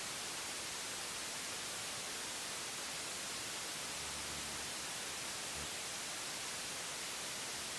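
Steady static hiss: dead air on an emergency broadcast, even and unchanging, with no voice.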